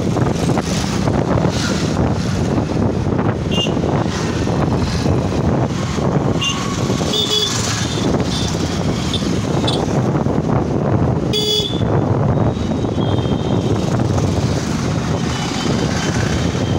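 Riding a motorcycle in town traffic: a steady rush of engine and wind noise, with several short vehicle horn toots, the loudest about eleven seconds in.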